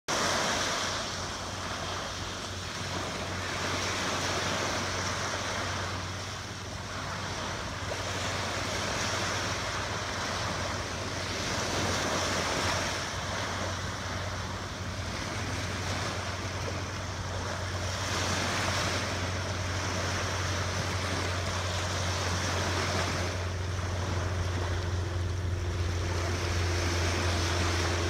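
Small waves breaking and washing up the sand at the water's edge, the surf noise swelling and ebbing every few seconds. A low steady hum runs underneath and grows louder near the end.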